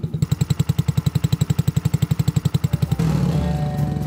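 Small petrol engine of a children's quad bike idling, an even putt-putt of about twelve beats a second. About three seconds in it gives way abruptly to a louder, steadier sound.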